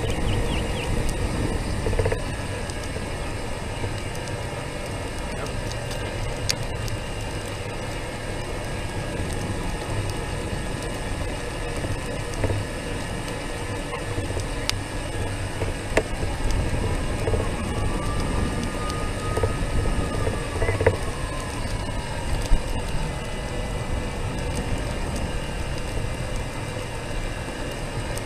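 Steady low rumble of a small, slow-moving vehicle rolling along a concrete sidewalk, heard from a camera mounted on it, with a few brief knocks over bumps.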